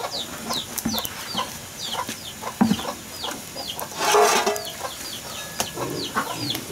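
Chickens calling without pause, a quick stream of short, high, falling cheeps with clucks among them. A low thud comes about two and a half seconds in, and a short, loud rush of noise about four seconds in.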